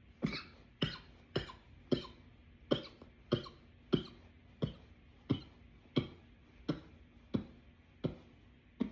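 A man's dry cough in a runaway coughing fit: about fourteen single sharp coughs in a steady train, roughly one every two-thirds of a second.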